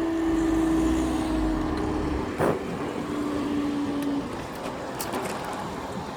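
Class 66 diesel locomotive running light past the crossing: a steady engine drone that sinks slightly in pitch and fades out about four seconds in, with a deep rumble over the first two seconds and a single sharp knock about halfway through.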